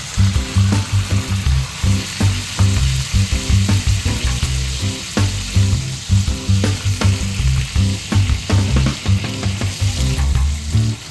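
Green peppers frying in oil in a frying pan, a steady sizzle with scattered light clicks of a utensil against the pan. Background music with a repeating bass line plays underneath.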